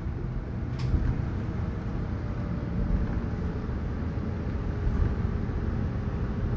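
2019 New Flyer XN40 bus's Cummins L9N natural-gas engine running as the bus moves slowly, heard from inside the cabin as a steady low rumble, with a brief sharp click about a second in.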